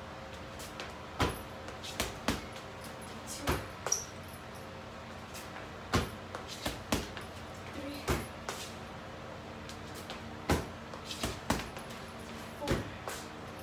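Gloved punches and kicks landing on a hanging Everlast heavy bag: sharp thuds at uneven spacing, about one a second, some in quick pairs.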